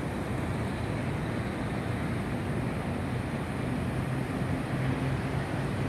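Steady low rumble of city traffic, an even wash of engine and road noise.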